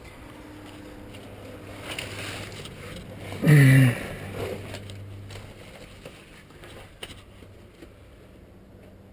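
Handling and rustling noise as a handheld camera is carried through a cave among boulders, with a faint steady hum. About three and a half seconds in comes one short, loud, pitched sound that drops in pitch.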